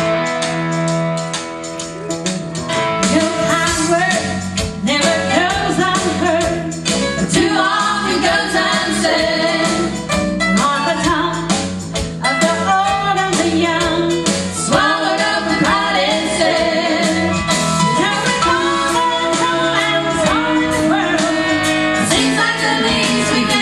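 A gospel vocal group singing a song with instrumental accompaniment and a steady beat.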